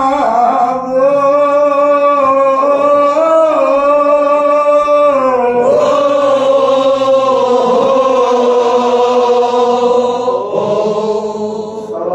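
A Kashmiri marsiya (Shia elegy for Imam Hussain) chanted by a man without instruments, in long held, slowly bending notes.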